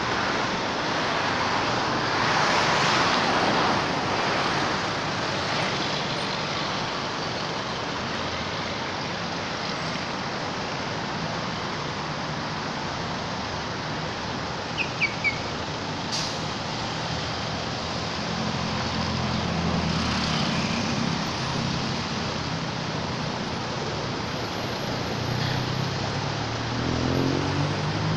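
Road traffic: a steady rush of passing vehicles that swells as they go by, with a low engine note rising near the end. Three quick high chirps about halfway through.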